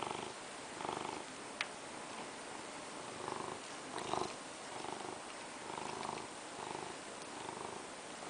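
A domestic cat purring steadily while begging for a crab-stick treat, the purr swelling and fading about once a second with its breathing. About four seconds in comes a brief snap as it bites at the treat.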